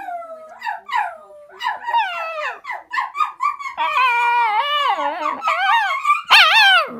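Puppy howling: a run of high, wavering howls that slide up and down in pitch, drawing out into longer howls partway through and ending on the loudest, rising howl.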